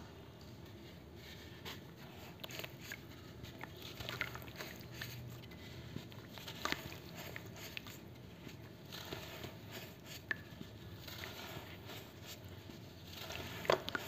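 Charcoal sand being crumbled and squeezed by hand in water: irregular small crunches, crackles and trickling splashes, with one sharper snap near the end.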